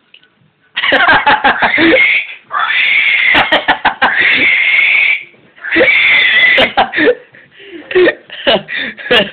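Loud, high-pitched, pig-like squealing in four long drawn-out bursts, starting about a second in.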